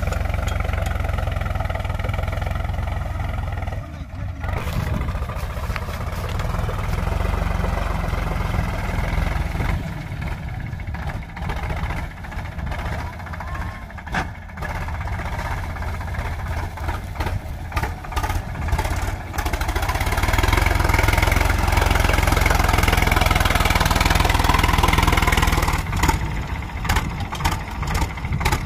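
Tractor's diesel engine running under load while pulling a zero-till seed drill sowing wheat, a steady low rumble that grows louder for several seconds near the end.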